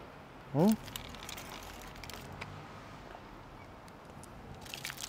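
A person's short vocal sound, a brief hum whose pitch rises quickly, about half a second in. After it only a faint steady background, with a few small clicks near the end.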